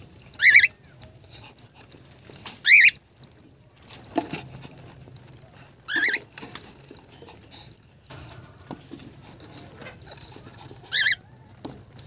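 Cockatiels in a nest box giving four short, shrill calls, spaced out over several seconds, with soft rustling between them.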